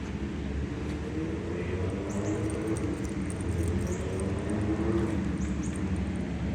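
Street traffic: a motor vehicle's engine hum running steadily and swelling slightly about five seconds in. A few short high chirps come over it.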